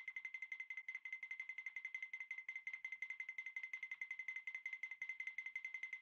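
Quiet background music: a fast, even run of repeated high notes on one pitch, about a dozen a second.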